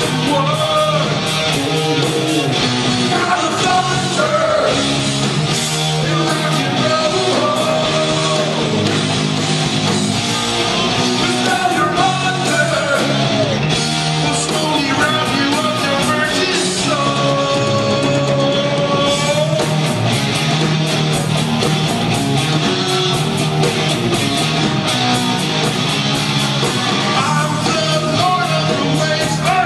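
Live hard rock band playing: distorted electric guitars and drums with singing, loud and unbroken.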